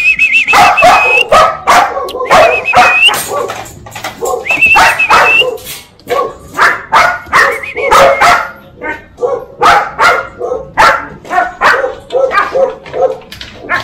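Belgian Malinois puppies barking and yipping, with three long high-pitched whines in the first five seconds, then a quick run of short barks, about two or three a second.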